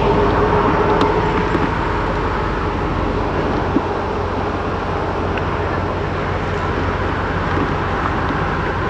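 Steady, loud rumble of aircraft turboprop engines running, with a whining tone that fades out in the first second or two.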